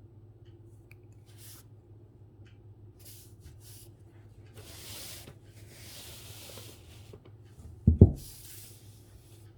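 Calligraphy brush strokes on paper: soft, separate swishes, some short and some lasting about a second. Just before the end comes a loud, low double knock against the desk.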